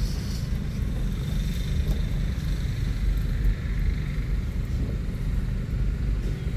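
Steady low rumble of a car driving slowly, heard from inside the cabin: engine and tyres on a rough sandy dirt road.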